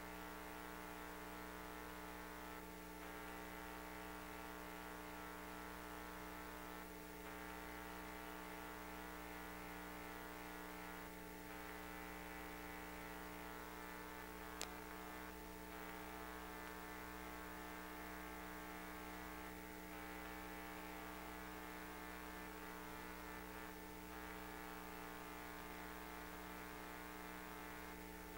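Steady electrical hum made of many layered tones, with faint regular dips about every four seconds. There is a single sharp click about halfway through.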